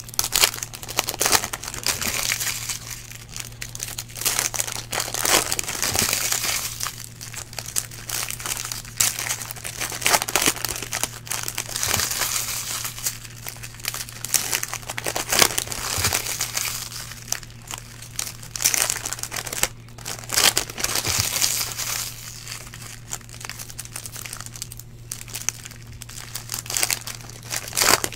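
Foil wrappers of 2013 Panini Prizm baseball card packs crinkling and being torn open by hand, a dense irregular crackle with sharp clicks, over a steady low hum.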